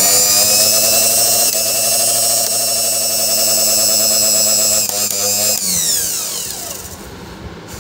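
Mixer grinder's universal motor running at full speed on freshly fitted carbon brushes, a steady high whine. About six seconds in it is switched off and the whine falls in pitch as the motor spins down.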